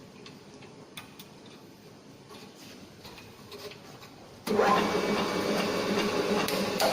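Circular saw blade grinder's electric motor switched on about four and a half seconds in and running steadily with a hum; before that only a few faint clicks.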